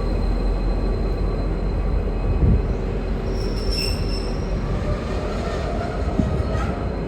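Wheels of a V/Line N-class locomotive-hauled train squealing as it rolls, a steady high-pitched squeal over the rumble of the train. A second, higher squeal joins briefly about three and a half seconds in.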